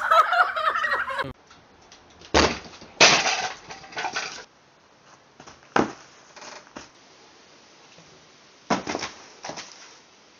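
A child's high voice cries out for about the first second, then several thumps and crashes follow: a person in a helmet falling and tumbling onto grass. The biggest run of impacts comes a couple of seconds in, with smaller ones in the middle and two more near the end.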